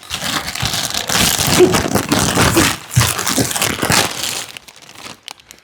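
Crinkling and crumpling of something crumbly being handled, dense and continuous, easing off near the end.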